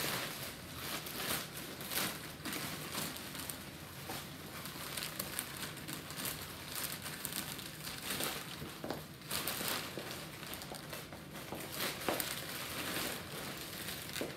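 Slow, uneven footsteps of boots with run-over heels, landing irregularly with a few sharper knocks, over a steady crackly rustle.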